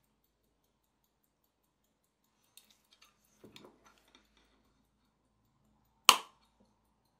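Metal pocket watch case handled with a few small clicks, then one sharp metallic snap about six seconds in as the hinged case back is pressed shut. Faint rapid ticking of the Waltham movement can be heard at first.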